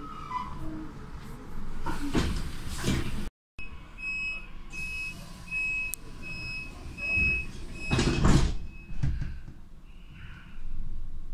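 Train door warning signal: a string of short high beeps, then the coach's sliding doors closing with a loud rush about eight seconds in.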